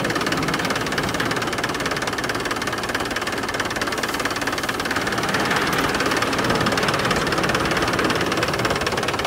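A tractor engine running steadily at low speed with a rapid, even beat, driving a groundnut separator machine.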